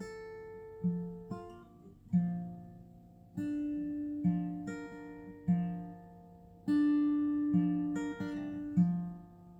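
Slow background music on acoustic guitar: single plucked notes and chords ringing out and fading, about one a second.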